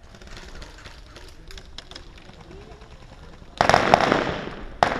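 Airsoft gunfire: faint scattered pops, then about three and a half seconds in a loud burst that dies away over about a second, and another sharp crack near the end.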